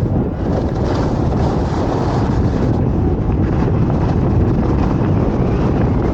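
Steady wind buffeting the microphone, a dense low rumble that holds at the same level throughout, as from a camera moving fast through open air.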